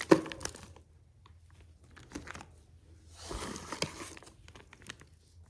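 Plastic bags of sawmill bolts, nuts and washers being lifted out of a box and handled: the plastic crinkles and the parts inside clink lightly. There is a knock at the start and two spells of rustling, the second about midway, with scattered small clicks between.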